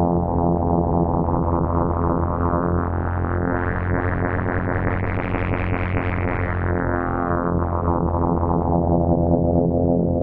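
Behringer 2600 analog synthesizer holding a steady low note while its filter slowly opens, brightening the tone to a peak about halfway through, then closes again so it turns dark and mellow near the end.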